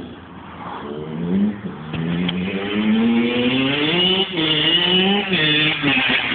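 Kawasaki KX85 two-stroke dirt bike accelerating hard as it passes close by. Its engine pitch climbs, drops sharply twice as it shifts up, and climbs again each time.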